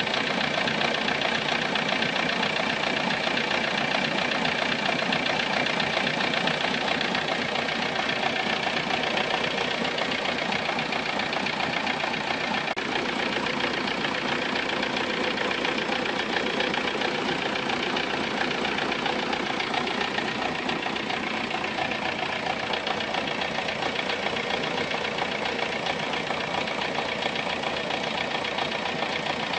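Volkswagen Golf Mk3 engine idling steadily, with a strange-sounding noise in its running that has not yet been pinned down.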